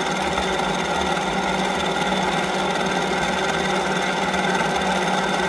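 Utility vehicle engine running at a steady idle, with no change in speed.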